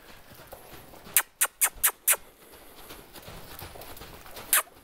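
A quick run of five sharp clicks about a second in, spaced about a quarter second apart, and one more near the end.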